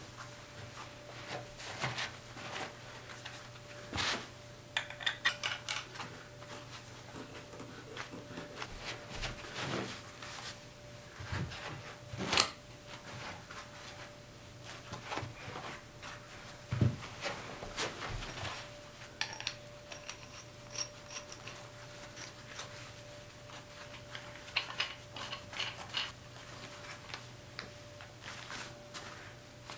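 Black iron pipe fittings handled and screwed together by hand in leather work gloves: scattered metal clinks, knocks and scraping of threads, the sharpest knock about twelve seconds in. A faint steady hum runs underneath.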